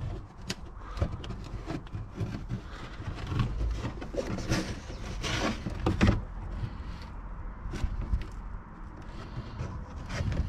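Hands pulling back and working the Audi A6's plastic wheel-arch liner behind the front bumper: irregular rustling and scraping with small knocks and clicks, and a few louder scrapes about halfway through.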